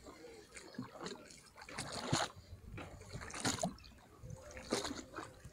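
Small waves slapping and gurgling underneath a pier, with a few hollow, drum-like knocks about a second and a half apart where air is trapped under the pier.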